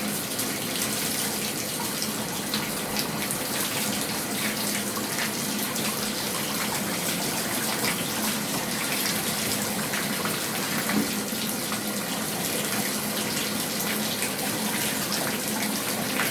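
Bathtub faucet running steadily, water pouring into the tub to test the drain just cleared of a hair clog.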